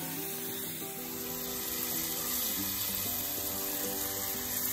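Piped churro dough sizzling as it fries in a shallow pan of hot oil, a steady hiss, under background music with held notes.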